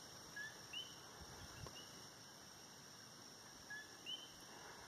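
Near silence, with faint two-note calls heard twice, a short lower note followed by a higher rising one, as from coqui frogs.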